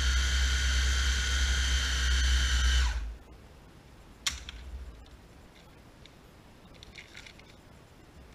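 Countertop blender motor running steadily as it blends cream cheese and imitation crab meat, then switched off about three seconds in and quickly winding down. A sharp click follows a second later as a hand takes hold of the lid, then a few faint handling clicks.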